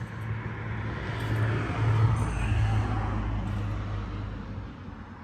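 A motor vehicle passing by: engine and road noise swell to a peak about two seconds in, then fade away.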